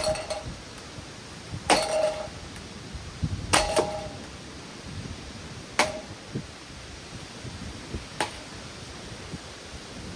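A metal ceiling fan being struck during demolition: five sharp blows roughly two seconds apart, several ringing briefly.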